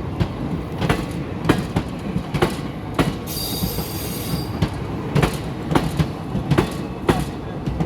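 Train wheels running over the rails, clacking at the rail joints every half-second to second over a steady rumble. Just past three seconds in there is a high-pitched wheel squeal lasting about a second.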